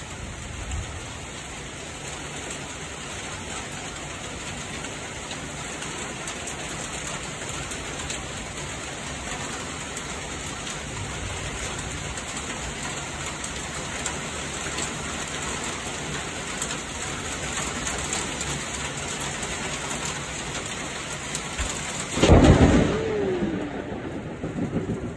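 Steady rain falling and pattering on surfaces, growing slightly louder. Near the end a loud, sudden clap of thunder breaks over it and rumbles away.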